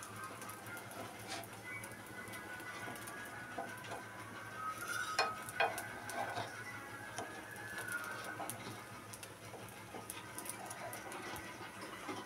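Wooden sticks tapping and scraping against a non-stick appe pan as the appe are turned in their cavities: scattered light clicks, with a couple of sharper knocks about five seconds in.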